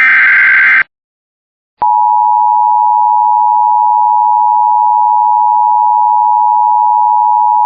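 Emergency Alert System signal: the last of three SAME data-header bursts, a harsh digital warble, ends about a second in. After a short gap, a steady attention tone near 1 kHz starts at about two seconds and holds, announcing the flood warning to follow.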